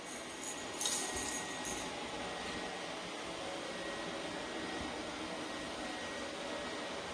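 Robot vacuum cleaner running with a steady whirring hum and a faint high steady tone; a brief scratchy noise about a second in.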